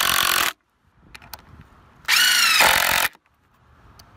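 DeWalt DCF885 20V MAX quarter-inch cordless impact driver hammering 2-inch deck screws into wood in short bursts. One burst stops about half a second in, and a second burst of about a second comes near the middle, its motor pitch rising as it spins up.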